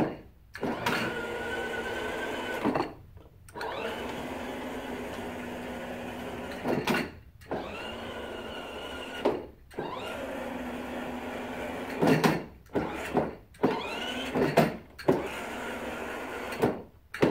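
The two electric drive motors of a switch-adapted Power Wheels Wild Thing ride-on toy, driven through a Sabertooth motor controller, whirring in a series of runs as its switches are pressed. There are about four runs of two to three seconds each, then several short bursts near the end. Most starts and stops have a sharp knock, and at several starts the whine rises in pitch.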